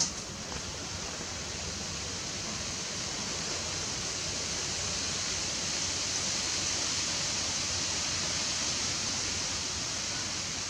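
Steady outdoor hiss, strongest in the high range and swelling a little mid-way, with a sharp click right at the start.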